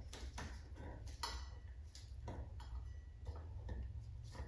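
Irregular light clicks and ticks, a couple a second, from handling: chandelier wires being worked by hand into the metal threaded nipple and chain, over a faint low steady hum.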